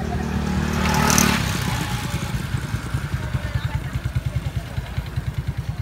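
Motorcycle engine running close by. It swells to its loudest about a second in, then settles into a low, rapid, even putter.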